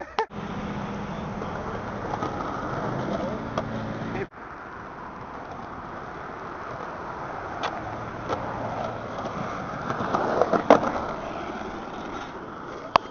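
Skateboard wheels rolling over pavement, with a few sharp clacks of the board, several bunched together about ten seconds in. The sound cuts off abruptly about four seconds in and the rolling resumes.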